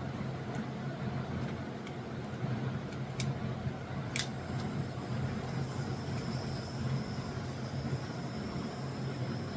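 Small hand torch burning with a steady hiss, used to melt a plastic zip tie for plastic welding, over a low steady hum, with a few sharp clicks in the first half.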